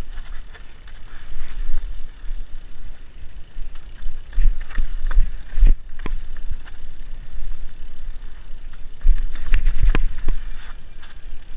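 Mountain bike riding down a dirt singletrack: a steady low rumble of wind on the microphone and tyres on dirt, with sharp rattles and knocks as the bike goes over bumps, several around the middle and a cluster near the end.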